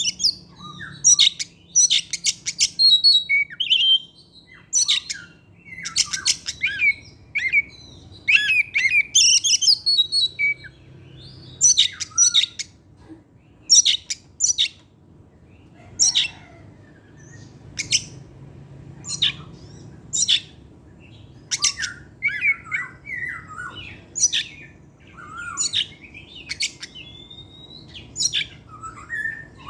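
Oriental magpie-robin (kacer) in full song: rapid runs of sharp, clicky notes, short whistles and harsh chirps, delivered in bursts with brief gaps.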